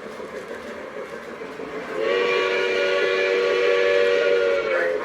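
A train whistle sounds a steady chord of several notes for about three seconds, starting about two seconds in and stopping just before the end.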